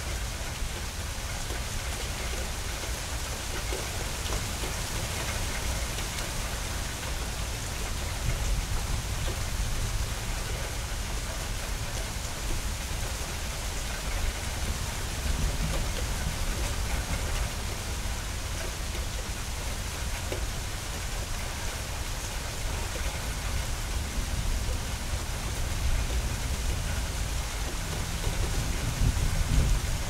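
Steady rain falling on hard surfaces during a spring thunderstorm, an even hiss without a break. A low rumble runs underneath and grows louder near the end.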